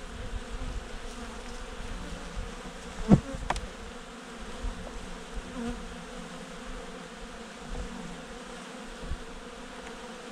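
Honeybees humming steadily over the top bars of an open hive during an inspection. A single sharp knock about three seconds in as the frames are handled.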